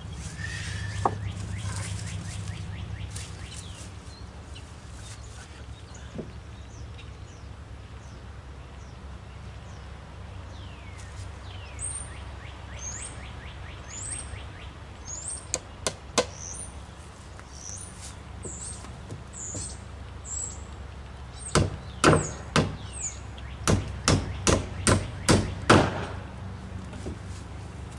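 Sharp knocks of something being struck: a few around the middle, then a quick run of about nine, roughly two a second, near the end. A small bird chirps over and over in the middle.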